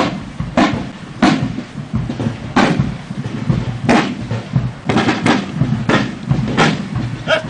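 Wooden field drum struck in single beats of a slow marching cadence, about ten sharp strokes at uneven spacing, with a few quicker ones about five seconds in.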